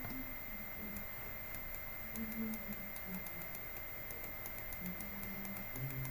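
Faint, scattered ticking clicks over a steady high-pitched electronic whine and low room hum.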